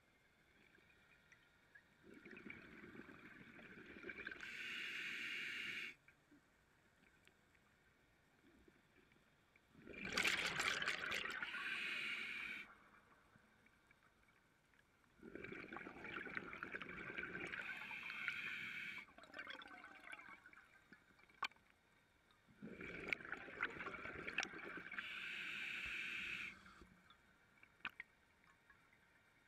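A diver breathing underwater through a scuba regulator: four rounds of hissing and bubbling, each a few seconds long, with quiet pauses between them.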